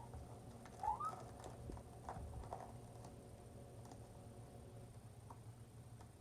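Faint clicks and rustles of plastic toy packaging being handled and opened, with a brief rising voice sound about a second in.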